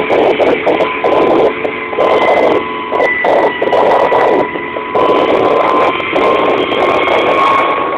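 Kamov Ka-26 helicopter in flight heard from inside the cabin: the steady drone of its twin nine-cylinder radial piston engines and coaxial rotors, with a steady high whine riding on top.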